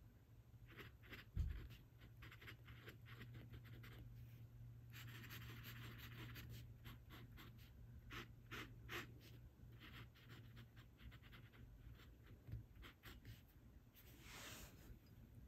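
Glass dip pen scratching on paper in many short strokes as letters and test squiggles are written, with one low bump about a second and a half in.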